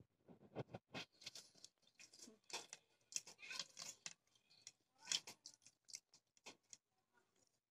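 Faint eating sounds: crunching and chewing of crisp fried snacks and chips, heard as short, irregular clicks and crunches.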